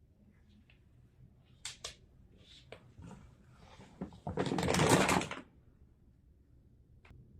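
A large alligator snapping turtle moving about on the floor: a few sharp clicks of claws or shell, then a scraping rustle lasting about a second, and one more click near the end.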